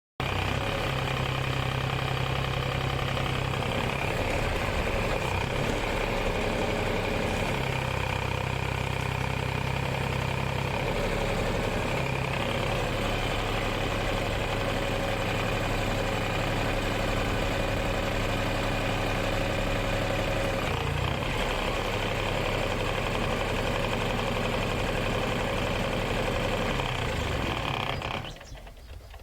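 Komatsu PC05-7 mini excavator's diesel engine running steadily while the machine works. Its low note shifts a few times as the load changes, with a steady higher whine over it.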